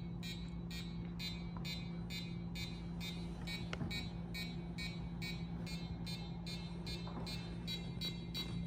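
Piezo buzzer on a light-sensor alarm circuit beeping in quick short bursts, about three to four beeps a second, its rate set by how much light reaches the sensor. A steady low hum runs underneath.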